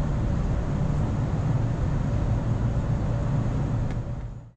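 Ex-JR West 413-series electric train heard from inside the carriage as it pulls away and runs: a steady low rumble with a faint even hum, fading out near the end.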